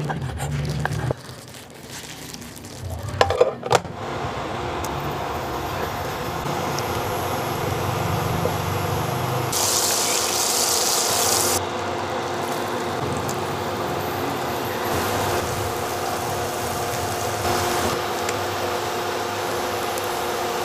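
A few knife chops on a wooden cutting board, then butter sizzling in a frying pan as it is stirred with a wooden spoon, with a steady hum beneath. The sizzle turns to a louder hiss for about two seconds near the middle.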